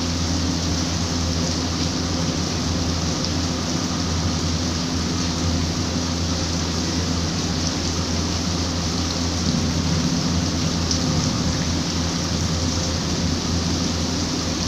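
Steady rain falling, an even hiss of water that does not let up, with a low steady hum underneath.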